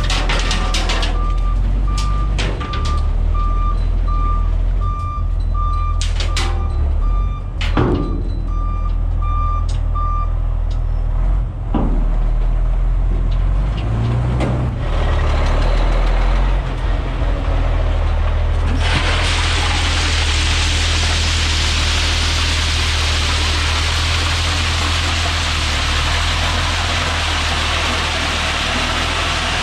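Dump truck backing up, its engine running under a reverse alarm that beeps about one and a half times a second and stops about ten seconds in, with a few clunks. From about two-thirds of the way through, a steady rush of gravel sliding out of the raised dump bed takes over above the engine.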